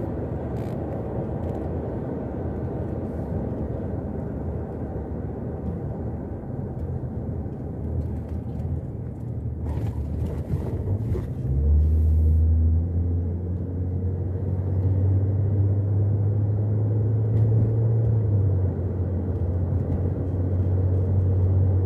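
Car engine and tyre noise heard from inside a moving car's cabin, a steady low rumble. About halfway through, the engine note rises and a loud low drone takes over for the rest.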